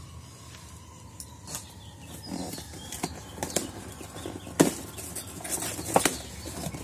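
Cardboard shipping box being opened by hand: flaps pulled open and handled, with rustling and a scatter of sharp taps and knocks, the loudest about four and a half seconds in.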